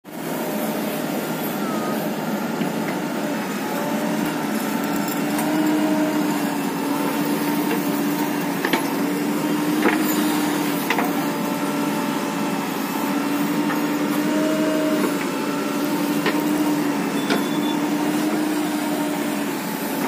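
JCB 3DX backhoe loader's diesel engine running steadily under load while the backhoe digs soil, its pitch drifting slightly up and down as the hydraulics work. A few short knocks come through in the middle.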